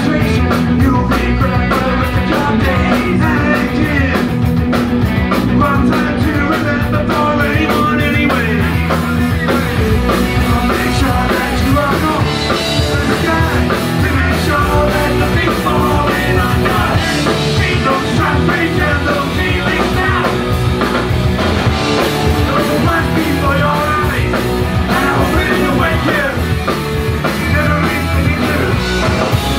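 Rock band playing live: distorted electric guitars over a drum kit, with fast cymbal strokes for the first several seconds.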